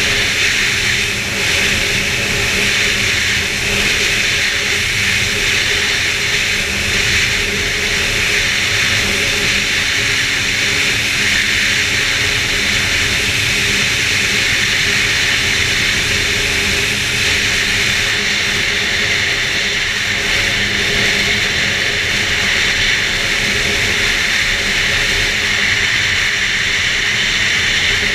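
2011 Arctic Cat F8 Sno Pro snowmobile's two-stroke twin engine running steadily under way on the trail, loud and without let-up.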